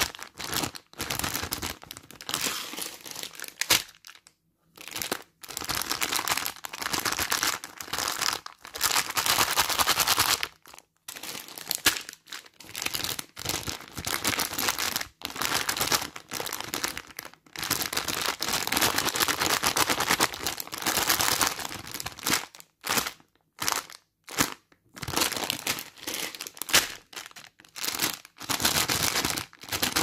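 Shiny plastic candy packets crinkling as fingers squeeze and rub them, in irregular bursts with short pauses between.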